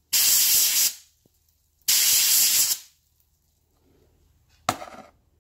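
Two short blasts of hissing spray, each under a second and about two seconds apart, knocking softened carbon off an engine valve that has been soaking in BG 44K. A short sharp tap near the end.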